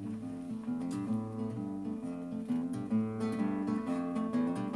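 Solo acoustic guitar playing an instrumental passage: picked and strummed chords over alternating bass notes, in a steady rhythm.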